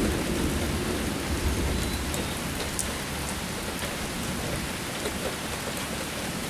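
Heavy rain pouring steadily, with the low rumble of thunder fading out over the first second or two.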